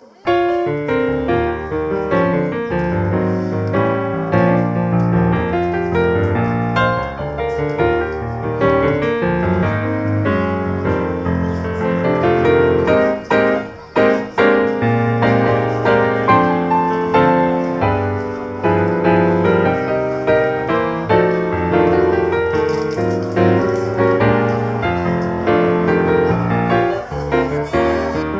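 Instrumental background music, mostly piano, playing a busy run of notes. It comes in abruptly at the start.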